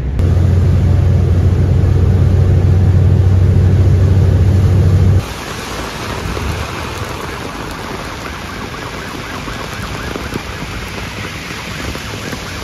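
Low steady drone of a bus engine heard inside the cabin, the louder part; about five seconds in it cuts to heavy rain pouring on a street and pavement, an even steady hiss.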